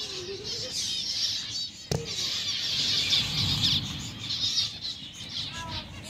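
A flock of small parrots, lovebirds, chattering with continuous high-pitched chirps, with a sharp click about two seconds in.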